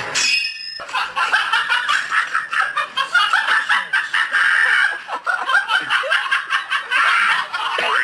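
Laughter: a long run of rapid chuckling and giggling bursts that cuts off suddenly at the end, after a brief high falling whistle at the start.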